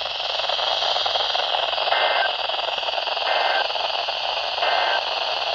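Weather radio static hiss with three short two-tone digital data bursts, about a second apart: the SAME end-of-message code that closes the NOAA Weather Radio weekly test.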